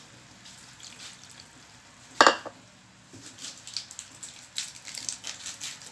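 Chopsuey simmering in an aluminium wok, its sauce sizzling and popping, the crackle growing busier in the second half. A single loud clank with a short ring sounds about two seconds in.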